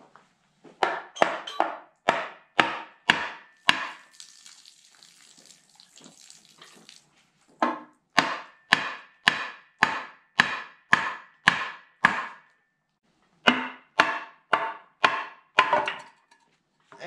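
Hammer blows on a Massey Ferguson engine's flywheel housing, knocking it loose from the block. The sharp, ringing strikes come about two a second in three runs, with a short scraping between the first two runs.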